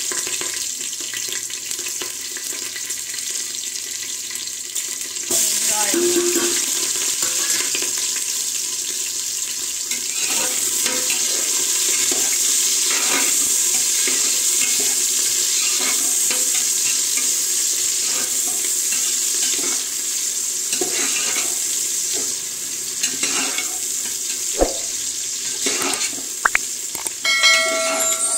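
Whole spices, green chillies and sliced onions sizzling in hot oil in an aluminium pressure cooker. A metal slotted spoon stirs them, scraping and tapping against the pot. The sizzle gets louder about five seconds in, when the onions go into the oil.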